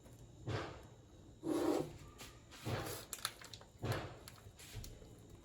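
Kitchen handling sounds as a cream is prepared: four short scraping, rustling noises, the loudest about one and a half seconds in.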